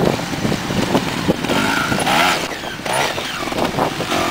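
TRS 250cc two-stroke trials motorcycle engine revving in short throttle blips, its pitch rising and falling.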